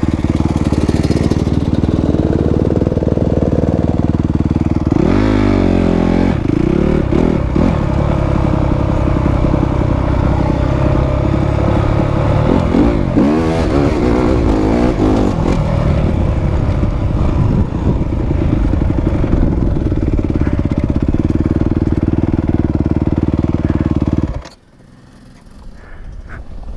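Dirt bike engine running under way, its pitch rising and falling several times as the rider works the throttle. The engine sound drops away sharply about two seconds before the end.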